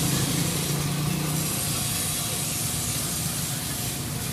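Street noise: a steady hiss with a low engine hum that fades away about a second and a half in.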